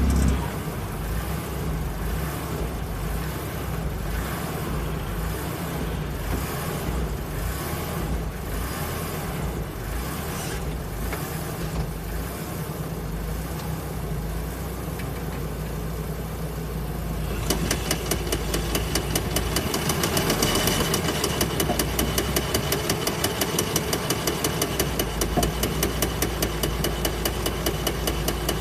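Nissan Silvia S15 with its SR20 four-cylinder running while its broken differential-side driveshaft joint knocks in a regular rhythm. The knocks come slowly, about once a second, at first. About two thirds of the way in they turn into a sharper, faster clicking of roughly four a second.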